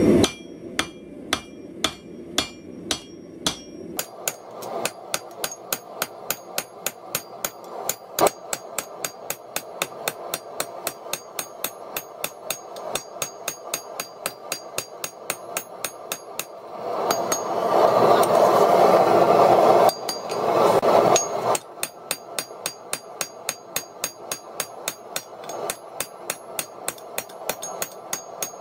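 Hand hammer striking a red-hot steel axe head on an anvil in a steady rhythm, about two to three blows a second. The first few blows ring. About halfway through, a loud rushing noise interrupts the blows for a few seconds, then the hammering resumes.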